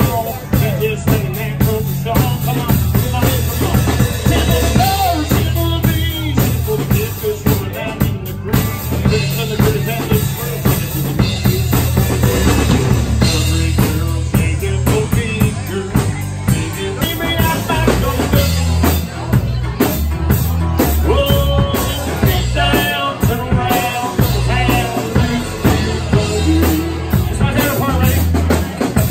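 Small live band playing: acoustic guitar and drum kit, with a singer.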